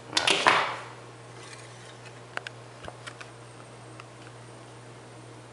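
Handling noise from a camera being lifted off its tripod: a brief scraping rustle about a second long right at the start, then a few light clicks a couple of seconds later, over a steady low hum.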